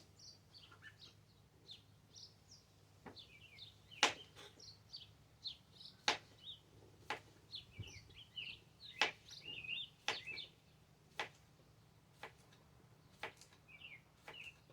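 Knife chopping through cucumber slices onto a cutting board, a sharp knock about once a second, with birds chirping in the background.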